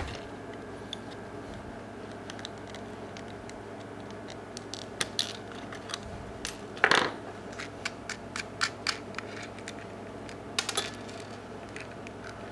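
Small hard parts clicking and tapping as a clock is handled and fitted into its face, with a louder knock about seven seconds in, over a steady low hum.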